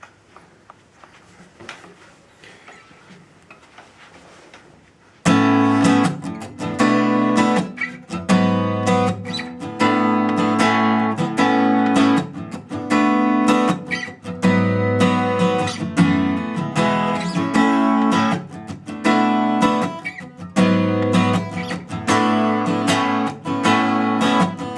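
Taylor 110-GB acoustic guitar strummed in chords, starting about five seconds in after a few seconds of faint handling clicks. It is recorded on a camera's built-in microphone.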